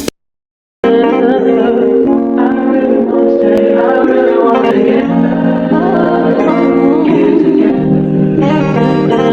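Background music: after a brief total silence at the start, a mellow track with a sung melody over guitar and organ-like chords.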